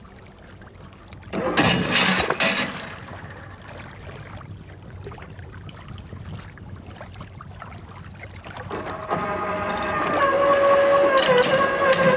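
SEA-PRO electric anchor winch on a boat's bow. A loud rattling clatter comes about a second and a half in as the Bruce anchor is let go from the bow roller. From about nine seconds in, the winch motor whines steadily as it hauls the anchor rope back in, with a couple of clunks near the end as the anchor comes up to the roller.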